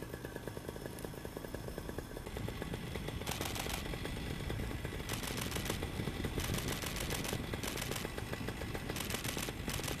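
Paramotor engine running at low throttle, a rapid steady pulsing, with gusts of wind rushing over the microphone.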